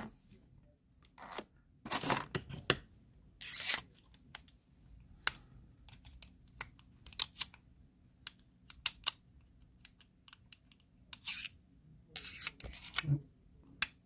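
Scattered metal clicks and short scrapes of a screwdriver working inside the steel body of a Master Lock Pro Series 7045 padlock as the lock is taken apart to get at its core.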